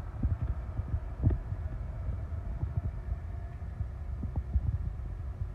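Steady machinery hum in a boat's engine room, under an uneven low rumble with irregular soft thumps.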